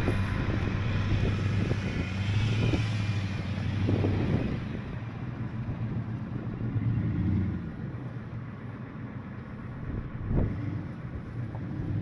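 Truck engines idling with a steady low hum, while a vehicle drives past on the snowy road during the first few seconds. A few short knocks are heard.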